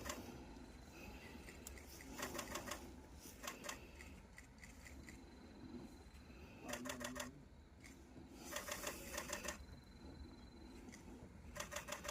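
Camera shutters firing in rapid bursts of evenly spaced clicks, several bursts of up to about a second each, separated by quieter gaps.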